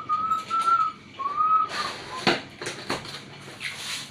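Someone whistling two held notes, followed about two seconds in by a sharp knock and a few lighter clicks as pump parts are handled.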